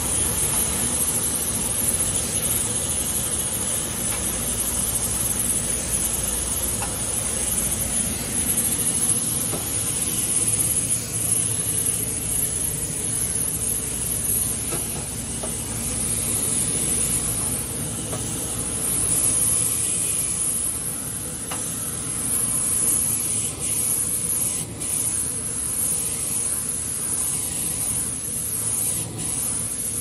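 Steady hiss of a water spray jet washing through a heavily fouled HVAC coil.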